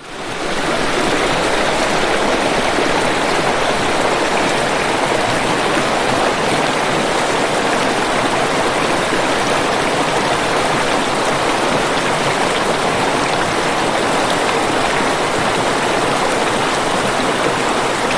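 Waterfall: a steady, even rush of falling water that fades up from silence in the first half second and then holds unchanged.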